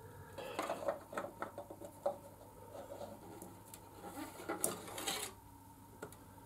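Hands handling a thin sheet-metal drip chute under a motorcycle oil filter: bursts of rubbing, light crinkling and small metallic clicks and taps.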